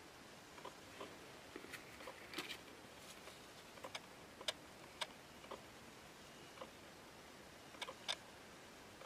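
Faint, scattered light clicks and taps of hands handling small baitcasting-reel parts and card-packaged drag washers, over a low steady hiss. The sharpest clicks come about halfway through and near the end.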